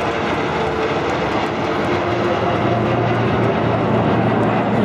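Jet aircraft engine noise: a steady, dense rush with a low hum underneath, growing slightly louder toward the end.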